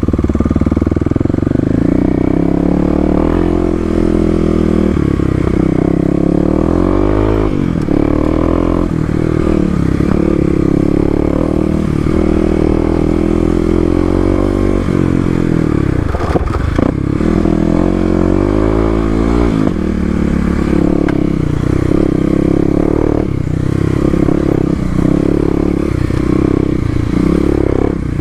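Kawasaki KLX250's single-cylinder four-stroke engine, fitted with an FMF Q4 muffler, pulling in low gears off-road, its pitch rising and falling over and over as the throttle is opened and closed. Occasional knocks and clatter from the bike going over rocks and ruts.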